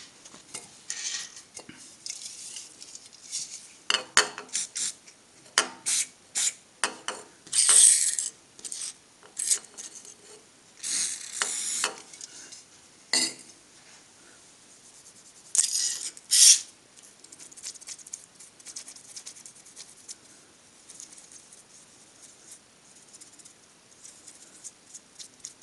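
Cleaning glue off thin stainless steel plates with a citrus glue-remover spray and tissue: several short hissing bursts and clinks of metal on the steel bench, then quieter rubbing and crackling of tissue on the plate near the end.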